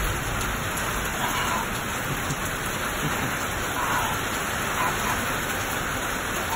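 A steady, even rushing noise, like heavy rain, with no clear calls or words.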